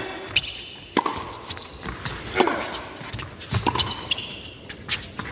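Tennis rally on an indoor hard court: rackets hit the ball with sharp pops roughly every second, and players give short grunts on some of the shots.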